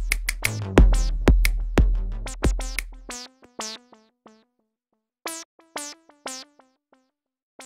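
Electronic outro music: a drum-machine beat with deep bass under synth notes. About three seconds in, the beat and bass drop out, leaving sparse single synth notes with short silent gaps.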